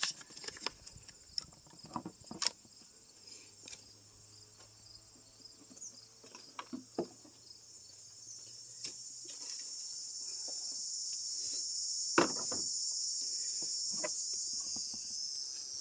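Insects buzzing at a high pitch, swelling louder through the second half, with scattered light clicks and knocks.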